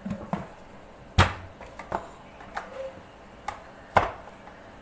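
Aluminium pressure cooker lid being pressed down and set onto the pot by hand, giving a few sharp metal clicks and knocks, the loudest about a second in and another near the end.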